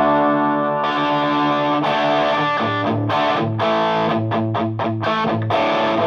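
Electric guitar (PRS S2 Custom 24) played through a Ramble FX Marvel Drive overdrive pedal into a Marshall JVM clean channel, giving a distorted tone. Chords are strummed and left to ring, then, from about three seconds in, short choppy chords at roughly three a second.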